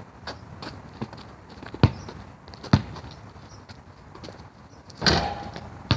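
Basketball bouncing on an outdoor court during one-on-one play: two hard bounces about a second apart, lighter taps, and a longer rattling clatter near the end.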